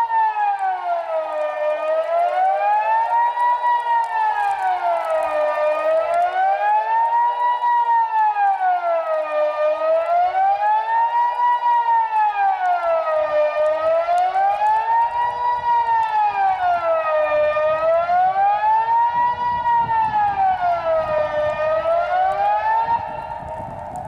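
Kockum Sonics Delta 6-AT electronic civil-defence siren sounding the Swiss general alert ('Allgemeiner Alarm'): a single wailing tone rising and falling about once every four seconds, cutting off near the end as the one-minute signal finishes.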